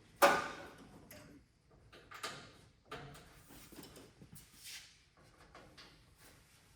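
A sharp clack about a quarter second in, then scattered softer clicks and rustles of hand work.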